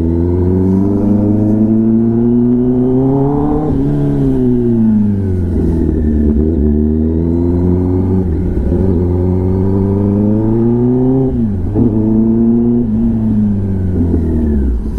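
Kawasaki Ninja ZX-10R inline-four engine through an SC-Project exhaust, pulling under acceleration while riding: the pitch climbs steadily for about four seconds, falls away, then climbs again for about five seconds before dropping sharply, and rises again near the end.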